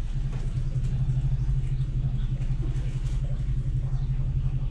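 A small engine running steadily at idle: an even low hum that sets in just after the start.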